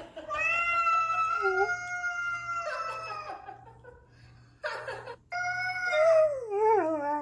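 A cat yelling in long, drawn-out yowls: one steady call about three seconds long, then after a short gap with a brief noisy burst, a second call that wavers and falls in pitch near the end.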